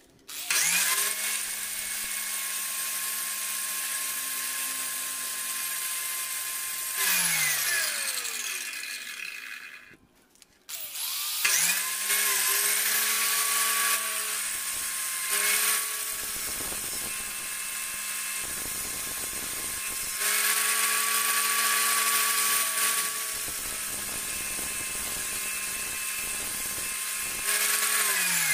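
Electric power tool motor running at speed, with louder stretches where it bears into the work. It winds down with a falling pitch about a third of the way in, starts up again a few seconds later, and winds down again at the end.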